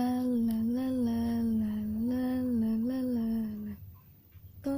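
A voice holding one long, drawn-out vocal note with a few small wavers in pitch for almost four seconds, then breaking off. The storyteller voices the ant crying out as it sinks into quicksand.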